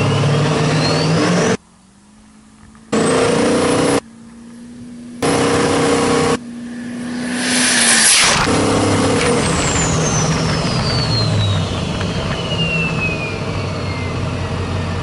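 Pickup truck engines running and revving in short clips that cut in and out abruptly, building to a rising rush about eight seconds in. A high whistle glides up near the start, and a long falling whistle runs through the second half.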